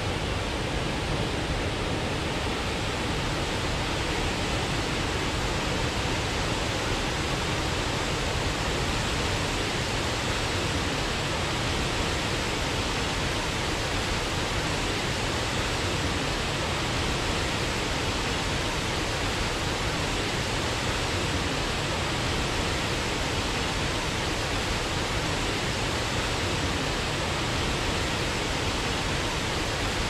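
Waterfall rushing steadily: an even, unbroken wash of falling water with no breaks or changes.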